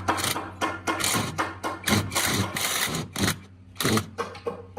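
A string of irregular sharp knocks and clatters, about a dozen, typical of wooden pieces and tools being handled and fitted, over a steady low hum.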